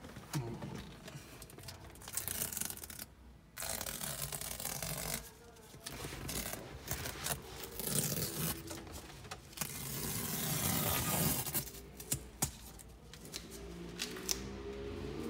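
Masking tape being peeled off a leather car seat, with rustling and rubbing from handling it. The sound comes in several rough, noisy stretches, with a few sharp clicks near the end.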